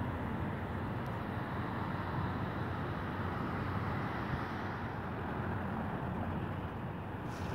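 Steady outdoor rushing noise across the gorge, an even roar and hiss with no distinct events, and a brief faint click near the end.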